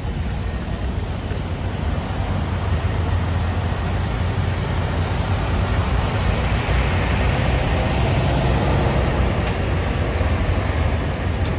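Heavy diesel semi-truck engines running with a steady low rumble, growing somewhat louder from about six seconds in.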